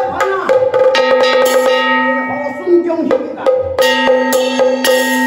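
Taoist ritual music: a suona-like reed horn plays long held notes, some bending in pitch, over a few sharp, irregular percussion strokes.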